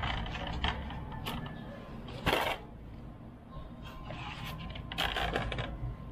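Unboxing handling noises: foam model-plane parts and the foam box being moved, knocked and slid, with plastic wrapping rustling. One louder, brief noise comes a little over two seconds in.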